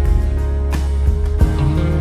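Instrumental music with guitar over a steady low bass, with a couple of sharp percussive hits.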